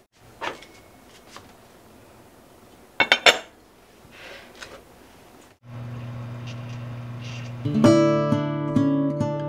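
Lid of a small pumpkin-shaped pot set down on it with a few quick, sharp clinks about three seconds in, after a faint tap. About halfway through, acoustic guitar background music starts, picked at first and then strummed.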